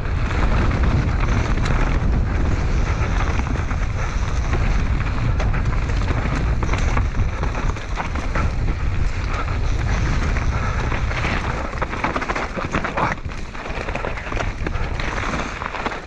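Mountain bike riding fast down a dirt and stone singletrack: tyres rolling over the ground with knocks and rattles over bumps, and wind rushing over the microphone.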